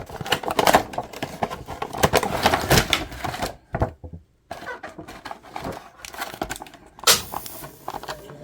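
Hands handling plastic action-figure packaging: a run of clicks, taps and rustles, with a short pause about four seconds in and a sharper click about seven seconds in.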